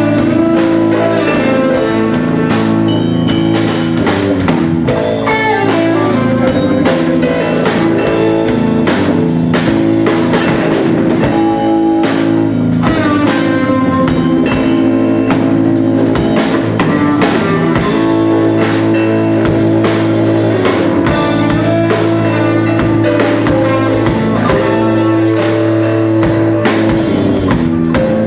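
Rock band playing live: guitar over a drum kit, loud and steady.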